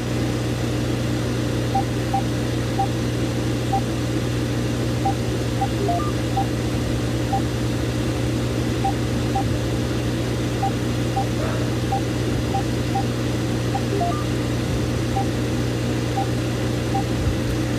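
A steady low hum with a few faint, soft ticks scattered through it.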